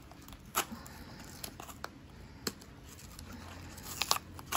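Small cardboard blind-bag box and its foil packet being handled and opened: light rustling with a few scattered sharp ticks, the loudest about four seconds in.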